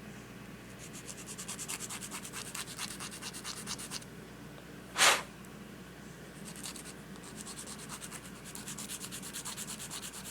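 Nail file rasping quickly back and forth on a small plastic Lego blaster, shaving down the stub of a cut-off scope, in two runs with a pause between them. About halfway there is one short, loud puff of noise.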